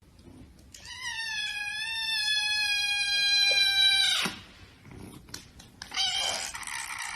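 A cat giving one long, drawn-out meow lasting about three seconds, wavering slightly in pitch, then a second, rougher cry near the end.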